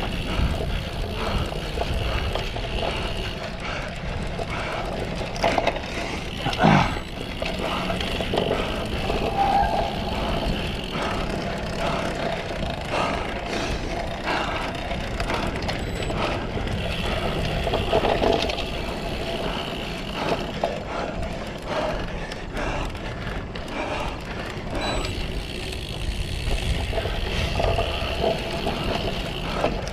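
A cyclocross bike raced over a bumpy course, rattling and clattering with many small knocks. There is a louder knock about seven seconds in.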